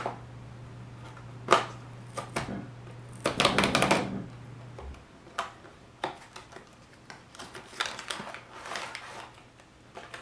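A small cardboard toy box and its plastic packaging being opened and handled by hand: a few sharp clicks and snaps, a burst of crinkling a few seconds in, then scattered lighter rustles and taps.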